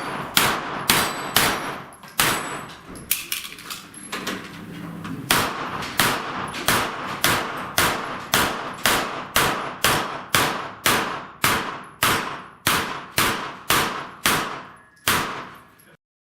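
A string of rapid gunshots at steel plate targets, each shot followed by a ringing clang. A few irregular shots come first, then a short break, then a steady run of about two shots a second.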